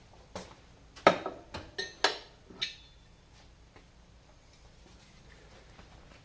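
Several short, sharp clinks and knocks of hard objects being handled on a workbench, bunched in the first two and a half seconds, the loudest about a second in. Then only quiet room tone.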